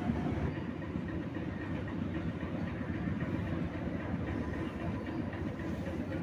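Hero Splendor motorcycle's single-cylinder engine running steadily, a rapid, even low chugging.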